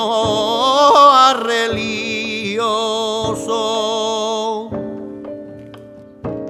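Flamenco cante: a male singer holds a long, wavering, ornamented vocal line over instrumental accompaniment. About four and a half seconds in the voice stops and the accompaniment plays on alone in separate ringing notes.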